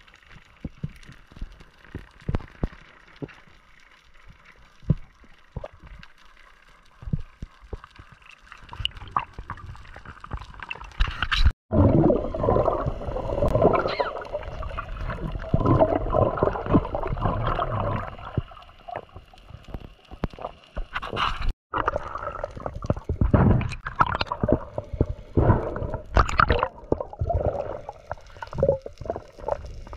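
Water gurgling and sloshing close to the microphone, scattered clicks at first, then much louder and denser from about twelve seconds in, with two brief dropouts to silence.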